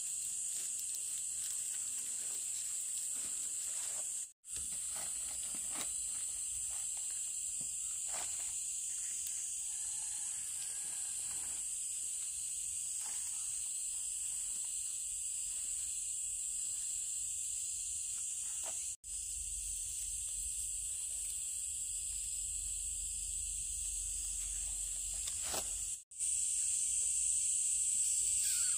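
Steady high-pitched drone of an outdoor insect chorus, with faint soft clicks and rustles beneath it; it cuts out briefly three times.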